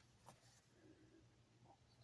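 Near silence: quiet room tone with a faint low hum and one faint tick.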